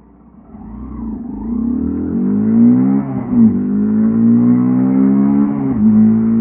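Mutt Akita 125's single-cylinder engine and exhaust pulling away from low revs and accelerating, the note climbing in pitch. It drops briefly at a gear change about three seconds in, climbs again, and drops at a second shift near the end.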